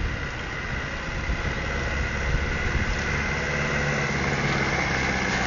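Land Rover Defender 110's engine running as the 4x4 crawls closer through woodland ruts, growing steadily louder.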